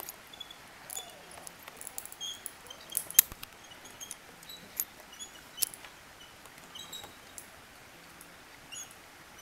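Scattered sharp clicks and clinks of steel carabiners being handled on a safety cable, the loudest about three seconds in, with faint short high chirps between them.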